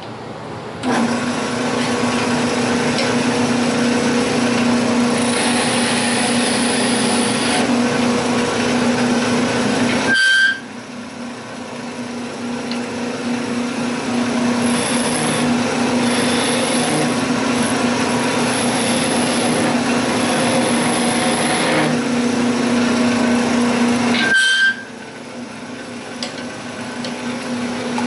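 Wood lathe running while a turning chisel cuts a wooden spindle: a steady hum under the hiss of the cut. The cut stops abruptly about ten seconds in and again near the end, then eases back in each time.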